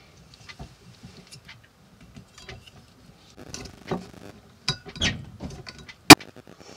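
Corkscrew twisting and levering a cork out of a wine bottle: small creaks and squeaks of the cork, then a single sharp pop about six seconds in as the cork comes free.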